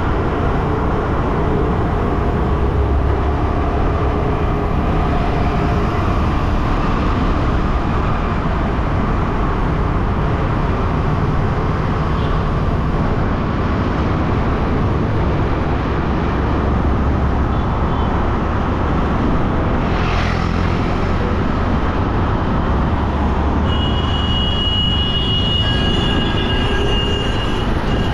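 Motor scooter riding through city traffic: a steady rush of wind, engine and road noise. A high, steady tone sounds for a few seconds near the end, as a city bus runs alongside.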